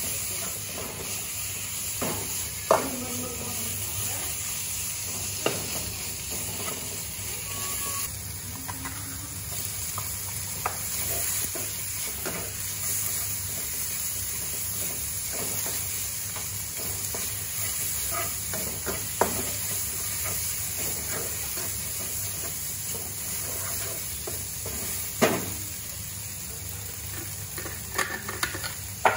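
Pork strips in curry paste sizzling steadily in a wok while a spatula stirs and scrapes them. A handful of sharp knocks, the loudest sounds, come from the spatula striking the wok.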